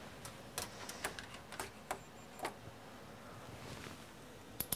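Scattered light clicks from a pair of multimeter test leads being handled, then a quick cluster of clicks near the end as a hand works the Fluke multimeter.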